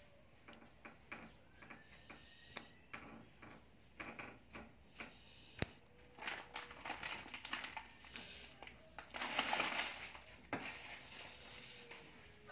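Small clicks and snips of a toenail nipper working at an ingrown toenail, with a louder snap about five and a half seconds in. A scratchy noise lasting about a second comes around nine seconds in.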